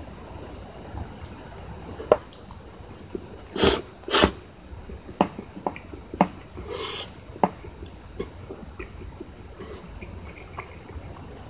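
Someone eating spaghetti: scattered wet mouth clicks, with two loud, short slurps of noodles close together about four seconds in and a softer slurp a few seconds later.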